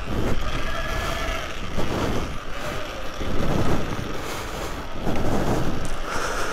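Electric dirt bike riding over rough dirt: a faint motor whine that rises and falls with the throttle under surging rumble and wind buffeting on the microphone.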